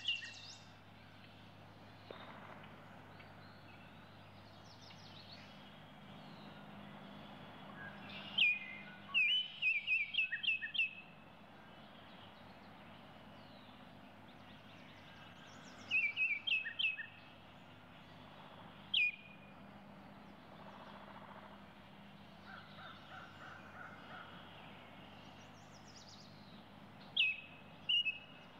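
A bird chirping in short runs of quick, high notes that drop in pitch, with pauses of several seconds between runs, over a faint steady background hiss.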